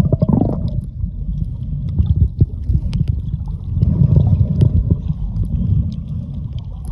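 Muffled underwater rush of moving water around a submerged camera, with scattered small clicks and pops, swelling about four seconds in.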